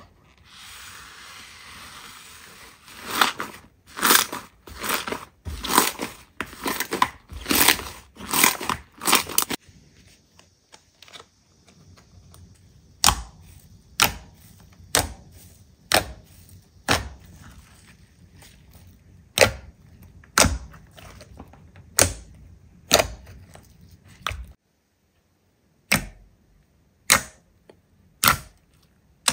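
Slime being pressed and poked by hand: a series of sharp popping clicks, dense and quick over a steady hiss for the first nine seconds, then sparser, roughly one a second.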